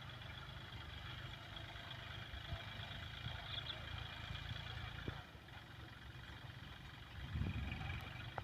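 Tractor engine running steadily with a low hum, swelling louder briefly near the end.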